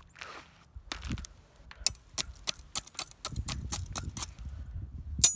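BB guns firing at a can on pond ice: a run of sharp, snapping shots, a few every second, the loudest near the end.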